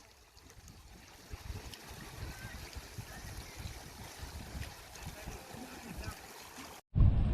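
Faint water trickling and lapping, with soft irregular low thumps. The sound cuts off abruptly near the end.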